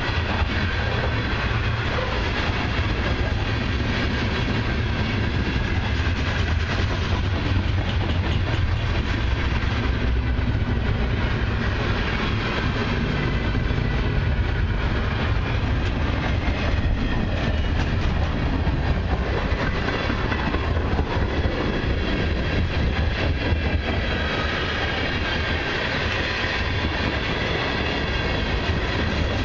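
A long freight train's cars rolling past: covered hoppers, an autorack and tank cars. Their steel wheels make a steady loud rumble on the rails, with repeated clicks over the rail joints.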